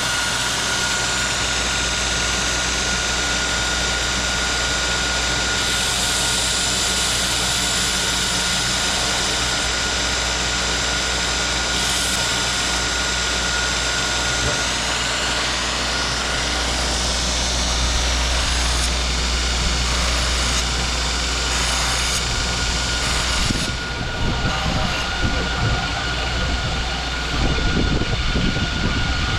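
Electric knife-sharpening machine running steadily with a constant high whine while a knife blade is sharpened on it; from about two-thirds of the way in the sound turns uneven and choppy.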